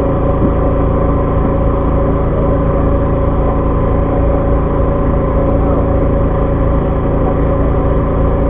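Fishing boat's engine running steadily at a constant pitch and level, with a low hum.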